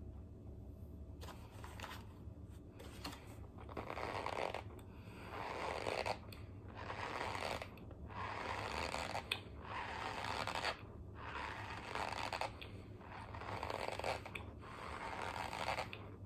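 Close-up chewing of a spoonful of chalky white powder, heard as repeated squeaky, crunchy chews in bursts about every second or two.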